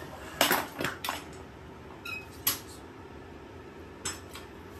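Steel frame of a collapsible utility wagon clattering as it is flipped over and set down on its wheels: a loud rattle of metal knocks in the first second, then a few lighter knocks and a brief squeak.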